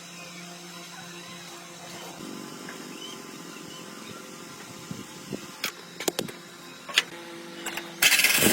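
A few sharp clicks and knocks over a low background, then near the end the UAZ 469's starter begins cranking the engine.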